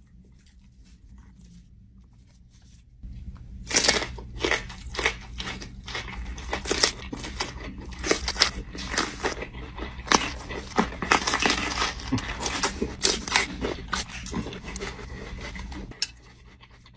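Crinkling and crunching of a Takis snack bag and its contents, a dense run of irregular crackles that starts about three seconds in and stops shortly before the end.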